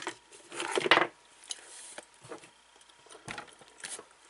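Hands handling dishwasher motor parts: a few clicks and knocks, with a louder scraping rustle about a second in.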